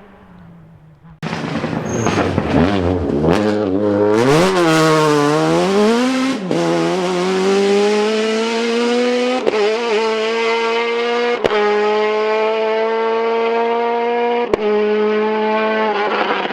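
Ford Escort rally car engine cutting in loud about a second in, its revs swinging rapidly up and down, then climbing and holding high under sustained throttle. A few sharp cracks are heard later in the run.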